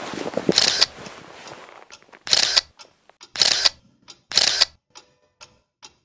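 Camera shutter sound effect: four shots about a second apart, each a short click-and-whir, with a few faint clicks between.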